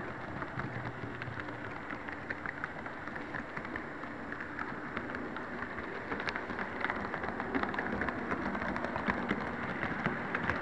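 HO-scale model train rolling along its track, heard from a tiny camera riding on the train: a steady, dense rattle of small wheels on rails, full of quick sharp clicks, over a faint low hum.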